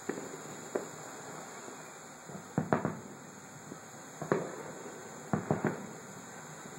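Distant aerial firework shells bursting: a series of sharp booms, about eight in all, some coming in quick pairs and threes, over a steady background hiss.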